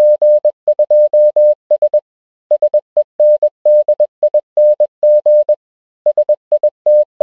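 A single steady electronic tone beeping on and off in short and long beeps like Morse code, in groups with a pause about two seconds in and another about five and a half seconds in.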